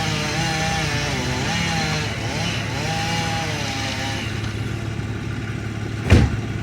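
Chainsaw engine revving up and easing off several times over a steady low engine hum, then a single heavy thud about six seconds in.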